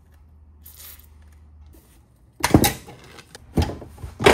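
Metal tools clanking against a turbocharger while a stuck coolant line is worked off: a quiet stretch, then three sharp metallic clanks in the last two seconds.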